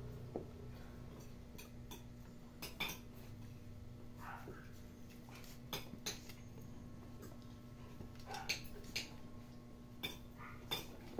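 Puppies play-wrestling on a tiled floor: scattered light clicks and taps of claws and paws on the tiles, a second or more apart, over a faint steady hum.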